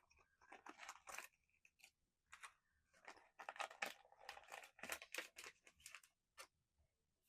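Faint rustling, tearing and crinkling of a small cardboard blind box and its packaging being opened and handled, in short scattered bursts with small clicks.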